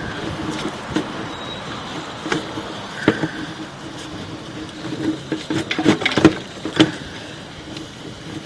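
Sewer inspection camera push cable being fed through a drain line, with irregular clicks and knocks that come thickest about five to seven seconds in, over a steady hum.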